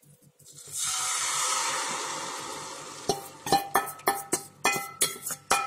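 Thin rice-flour batter poured into a hot nonstick kadai with a little sesame oil, hissing for about two and a half seconds as it hits the pan. Then a spoon clinks repeatedly against the rim of the bowl, about eight ringing taps, to knock out the last of the batter.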